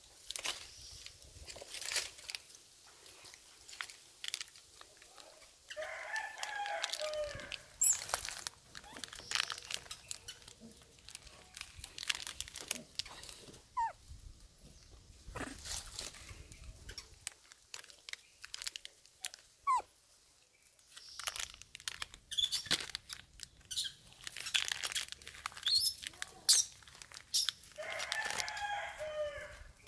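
A macaque crinkling a plastic snack wrapper, making sharp crackles on and off. A rooster crows twice, about six seconds in and again near the end.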